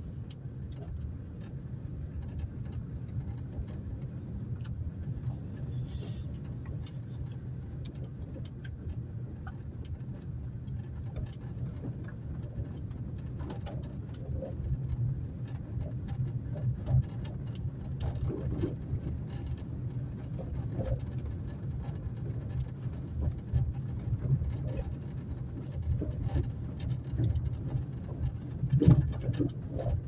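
Car driving slowly along a dirt track: a steady low engine and road rumble with scattered light clicks and knocks.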